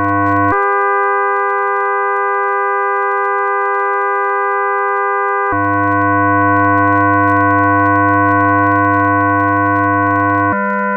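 Experimental electronic music made of sustained, steady pure tones layered into chords. The chord switches abruptly to a new set of pitches about every five seconds, and a low hum drops out for the first section and returns in the second.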